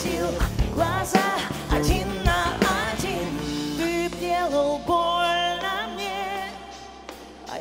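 Live band playing a pop-rock song with a wavering lead melody. The drum hits stop about four seconds in, long held notes follow, and the music thins and quietens near the end.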